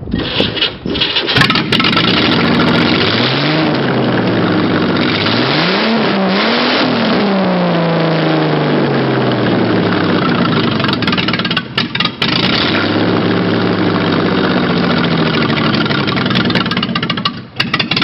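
A large engine starting, then revving up and down a few times before settling into a steady run. The sound breaks off briefly twice, near the middle and near the end.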